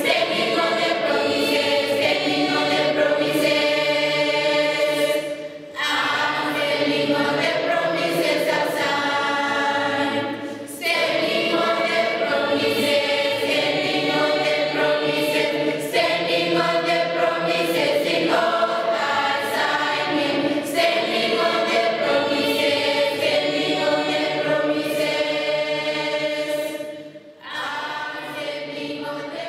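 Large school choir of uniformed students singing the school anthem together in long sustained phrases, with short breaths about 6 and 11 seconds in and a quieter stretch near the end.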